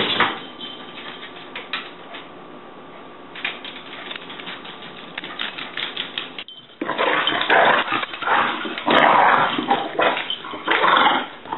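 A Jack Russell terrier roughhousing with a tabby cat: quick clicks and short scuffles. After a sudden break about six and a half seconds in come louder, denser bursts of scuffling.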